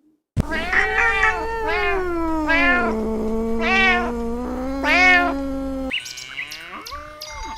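Cat meowing repeatedly, about five calls roughly a second apart over a steady low drone, followed near the end by a different, longer call.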